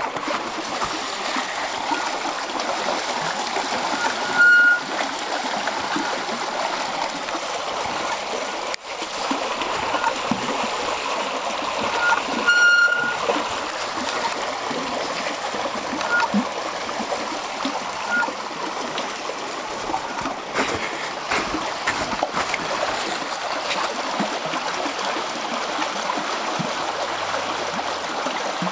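Fast-flowing stream rushing and splashing steadily. A few short high squeaks cut through, the loudest about four and a half and thirteen seconds in.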